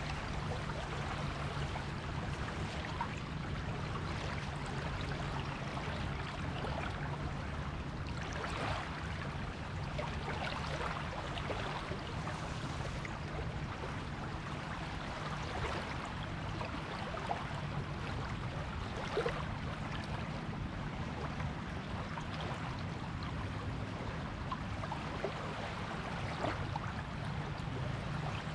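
Water washing gently on a beach shore: a steady wash with many small gurgles and fizzes, and no distinct breaking-wave crashes. A steady low hum sits underneath.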